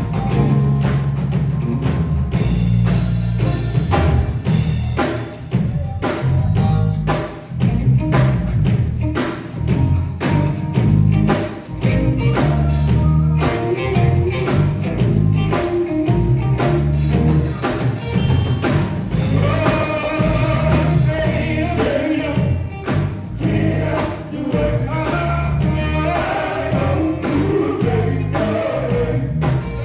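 Live gospel band (drums, bass guitar, electric guitar and keyboard) playing an upbeat groove with a steady beat, while a male vocal group sings over it; the voices stand out more in the second half.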